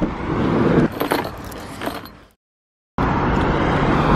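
A bunch of keys jangling in a van's door lock while the door handle is worked, with a few sharp clicks. It fades out about two seconds in, and after a short gap of silence steady road traffic noise starts suddenly.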